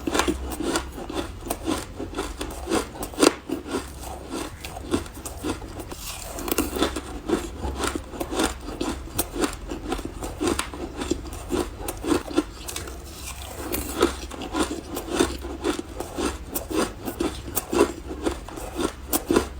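Frozen green matcha ice being bitten and crunched: a dense, continuous run of crisp, powdery crunches.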